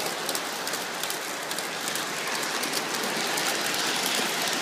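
Lionel O-gauge M-7 commuter cars rolling along the track: a steady, fine, rapid clatter of metal wheels on the rails with the hum of the powered car's motor.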